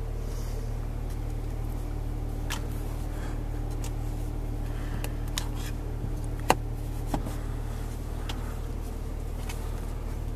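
Steady low hum inside a car cabin, with a few light plastic clicks as the sun-visor vanity mirror cover is flipped open and shut; the sharpest click comes about six and a half seconds in.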